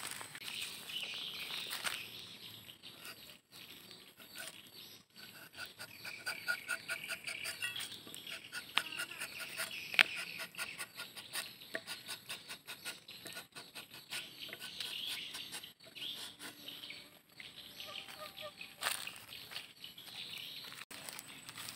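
Birds chirping and trilling in the background, with a few sharp clicks now and then.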